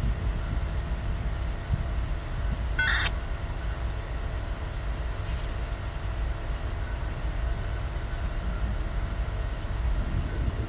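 Low, steady rumble of idling diesel engines, with one short high-pitched beep about three seconds in.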